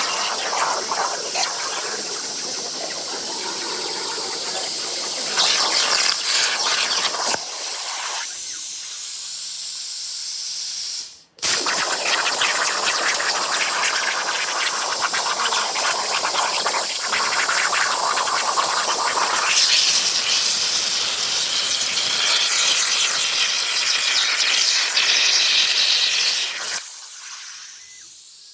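CNC plasma cutter torch cutting steel plate: the plasma arc makes a loud, steady hiss. It cuts off suddenly about eleven seconds in and starts again at once for the next cut, then stops shortly before the end.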